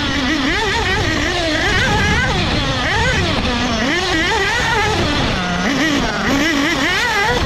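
Bullitt B-223 two-stroke nitro engine of a 1/8 scale Agama A319 buggy, revving up and down hard with the throttle, its pitch rising and falling every second or so. About five and a half seconds in, it drops briefly to a low steady note before climbing again.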